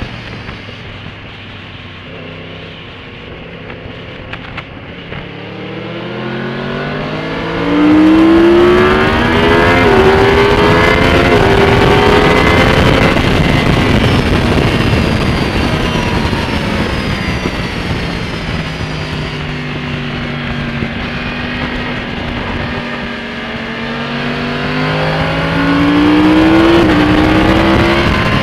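Yamaha R1 crossplane-crank inline-four with carbon Yoshimura cans and the cat removed, accelerating hard: loud from about eight seconds in, with two quick-shifted upshifts, then easing off and building again with another upshift near the end. Wind rush on the microphone runs under it.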